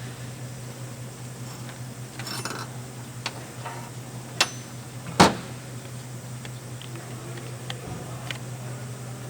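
A few sharp clicks and knocks of hard parts and tools being handled, the loudest about five seconds in, with a brief rustle before them and light ticks near the end, over a steady low hum.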